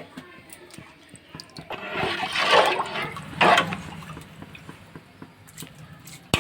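Water sloshing and splashing in a pot of rice, once for about a second and again briefly about three and a half seconds in, as the pot is stirred.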